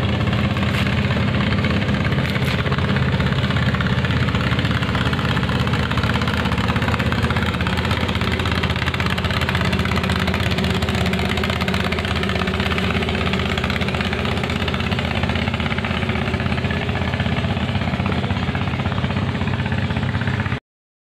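Small boat engine running steadily at a constant speed, pushing a wooden river boat. The sound cuts off suddenly near the end.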